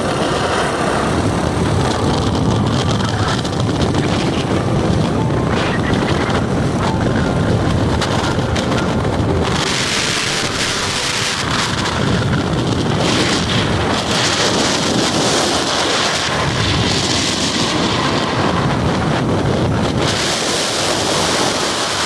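Wind buffeting the microphone of a moving motorcycle, with the motorcycle's engine and road noise running underneath. The gusting gets louder and hissier about halfway through and again near the end.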